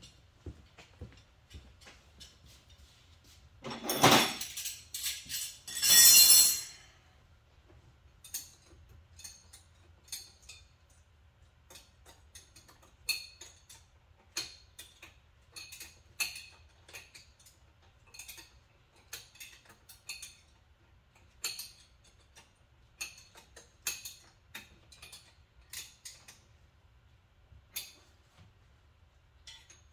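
Metal tools and hardware clinking and clicking at irregular intervals during sidecar fitting on a Ural motorcycle. Two louder, longer scraping noises come about four and six seconds in.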